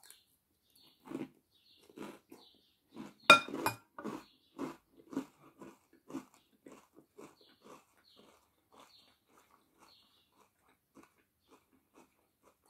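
Close-up chewing of a mouthful of crunchy salad: a run of crunches about two a second, loudest about three seconds in, growing fainter through the second half.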